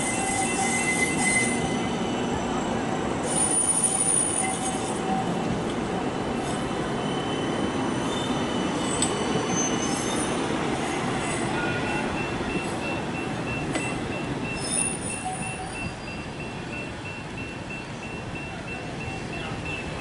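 Kaohsiung Circular Light Rail tram (CAF Urbos 3) rolling past on curved track, its wheels squealing in high steady tones over the running rumble. The squeal is strongest in the first few seconds and the sound eases a little after about fifteen seconds.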